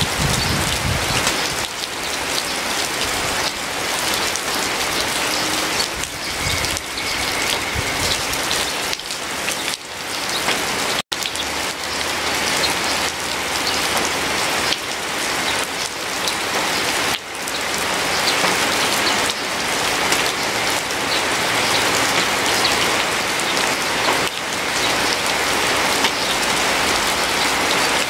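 Steady, dense rain pattering, an even hiss of drops. It cuts out for an instant about eleven seconds in and resumes at once.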